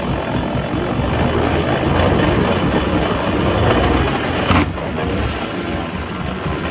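Old Mariner 20 hp two-cylinder two-stroke outboard running on a test stand, a loud, steady, rough engine noise. About two-thirds of the way through there is one sharp clack, after which it runs a little quieter.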